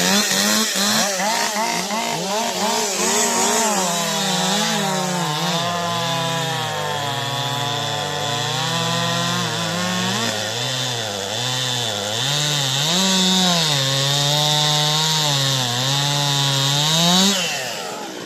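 Husqvarna 550 Mark II two-stroke chainsaw at full throttle cutting through wood, its engine pitch sagging and picking up again over and over under load. The throttle is let off about 17 seconds in.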